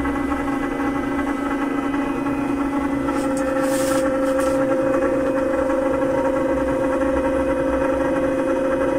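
Vibration platform's motor running with a steady buzzing hum. Its higher tone grows stronger about halfway through.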